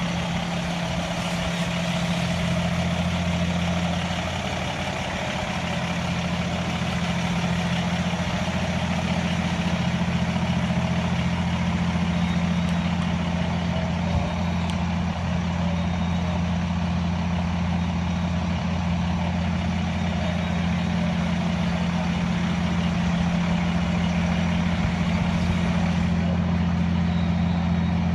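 Heavy diesel fire truck engine running steadily as a low, constant drone, with an even hiss over it.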